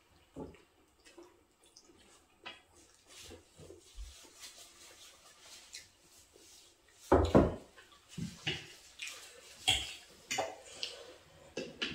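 Mukbang eating sounds: scattered wet mouth noises of chewing and slurping, with cutlery clicking against plates. A louder dull knock comes about seven seconds in.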